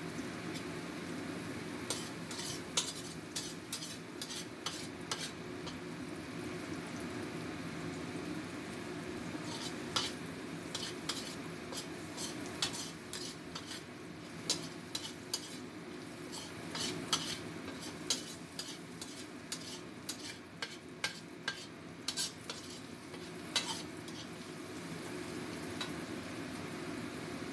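Metal spatula scraping and clicking against a stainless steel wok as diced carrot, shallot and garlic are stir-fried in oil, over a steady frying sizzle. The spatula clicks come in two spells: a short one about two seconds in, and a longer one from about ten seconds in until near the end.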